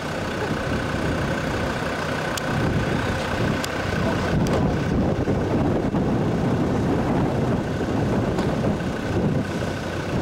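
A motor vehicle running, a steady mix of engine and road noise with a faint steady whine that fades near the end.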